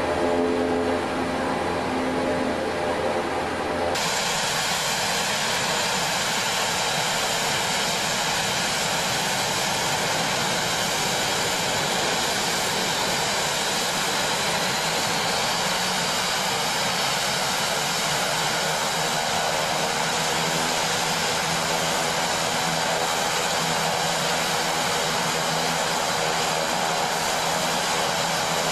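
Twin Pratt & Whitney PT6A-65R turboprop engines of a Shorts SD360 running on the ground at low power with propellers turning: a steady turbine whine and propeller noise. For the first few seconds it is a lower hum with steady tones as heard inside the cockpit, then it changes suddenly to the brighter, whining sound heard from outside the aircraft.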